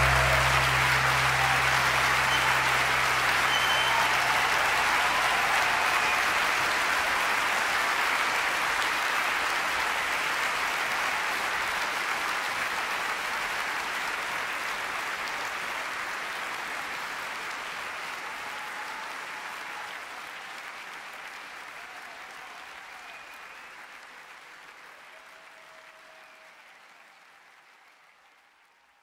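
Concert audience applauding at the end of a song, while a low held note from the band rings on for the first few seconds. The applause fades out gradually to silence.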